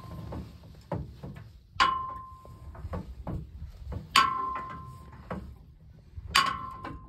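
Sharp metal-on-metal strikes, three of them about two seconds apart, each leaving a short ringing tone, with lighter knocks and clatter between them: tools banging on metal while a big tire is being changed.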